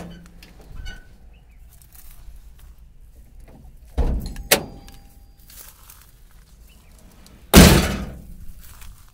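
Steel cab door of a Mahindra Bolero Pickup being handled: two knocks about four seconds in, then a loud bang near the end as it shuts.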